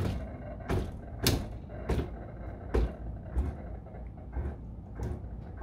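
Motor-driven Dillon 1050 progressive reloading press being jogged through its stroke in short steps, giving a series of sharp clicks and knocks about once every half second to second over a low drive rumble. Among them the FW Arms decapping die's pin punches the spent primer out of a .223 brass case.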